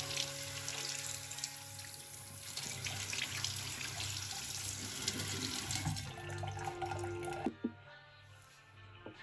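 Water running from a tap into a sink, which stops abruptly about three quarters of the way through. Soft background music plays underneath.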